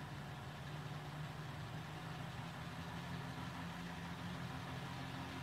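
HO scale model locomotive hauling a long train of passenger cars, with a steady low engine-like hum.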